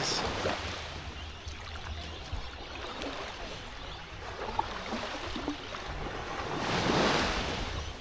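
Small waves lapping and washing up on a sandy shore, one wash swelling louder near the end, with wind rumbling on the microphone.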